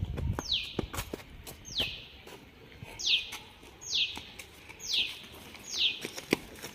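A bird repeating a short, high whistled note that slides downward, about once a second. A few sharp clicks fall in between, the loudest near the end.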